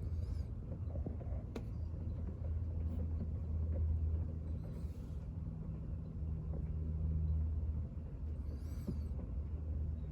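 Steady low mechanical hum with a few faint clicks, and two brief hissing swishes about five and nine seconds in.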